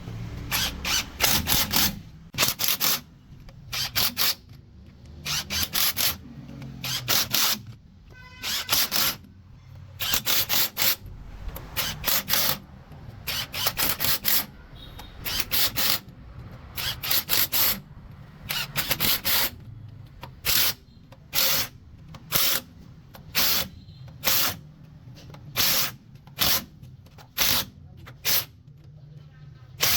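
A pneumatic tool being run in many short bursts, often two to four in quick succession, each a loud hiss of air, over a steady low hum.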